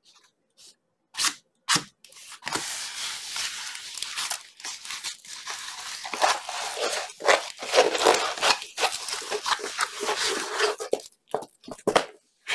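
A diamond painting canvas and its paper cover crinkling and crackling as they are rolled up by hand, rolled back the opposite way. Two short crackles come first, then several seconds of continuous crinkling, ending in a few short snaps.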